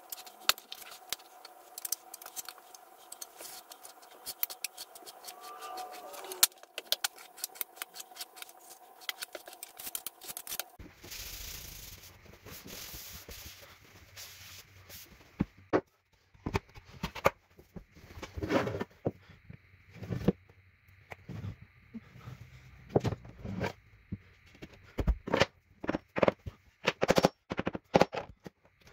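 A notched trowel scraping flooring adhesive across an OSB stair tread, with many small clicks and scrapes. From about halfway in, a hammer knocking on a wooden tapping block to seat an engineered hickory stair tread in the glue, a run of sharp knocks.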